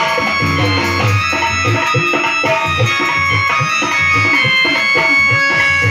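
Instrumental bhajan music: an electronic keyboard playing held melody notes over a steady drum beat.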